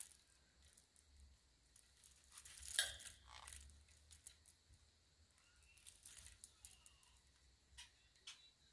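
Scattered light clicks, clinks and rattles of a green-cheeked conure chick wrestling its toy, with a louder rattling cluster about three seconds in.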